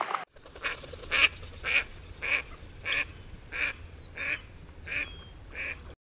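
Mallard quacking in a steady series, about nine quacks a little over half a second apart.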